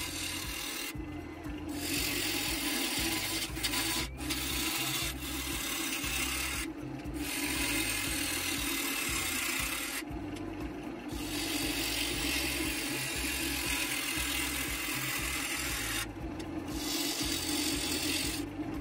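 Bowl gouge cutting the outside of a spinning Chinese elm bowl blank on a wood lathe: a steady hissing rasp as long ribbon shavings peel off, over the hum of the lathe. The cut breaks off briefly four times, about a second in, near seven seconds, around ten seconds and near sixteen seconds, as the tool comes off the wood.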